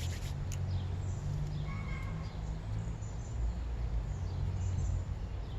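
Outdoor ambience: a steady low rumble with a few faint bird chirps, one of them about two seconds in.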